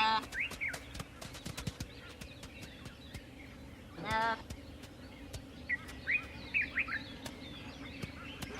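An impala calling in short, wavering bleats, three times: at the start, about four seconds in, and at the end. Short bird chirps come between the calls.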